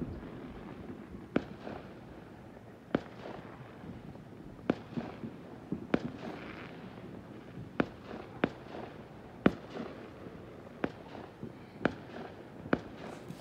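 Fireworks going off: about a dozen sharp bangs at irregular intervals, roughly one every second or so, over a faint background hum.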